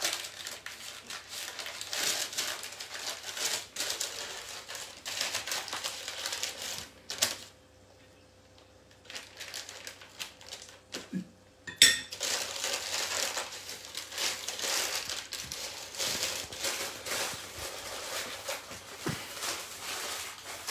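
Paper crinkling and rustling as it is rolled and pressed around a log of chocolate salame. There is a lull of a few seconds near the middle, then a single sharp click.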